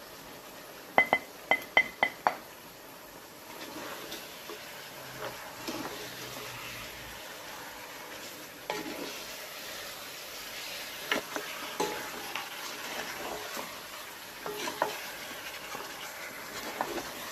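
About a second in, five quick sharp taps with a brief ring, as the spice bowl is knocked against the stainless steel pot. Then a wooden spoon stirs chunks of boiled beef and dry spices in the pot, scraping and knocking now and then against the metal.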